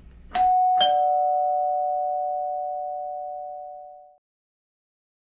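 Two-tone doorbell chime going ding-dong: a higher note, then a lower note about half a second later. Both ring on together and fade away over about three seconds.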